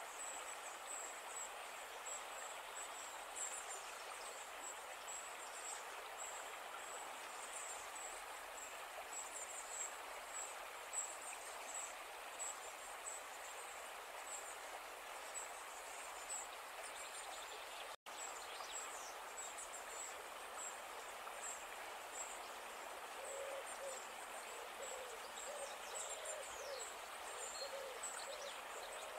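Steady outdoor background hum with high, thin chirps repeating throughout. In the last several seconds a bird gives a run of low, repeated hooting coos.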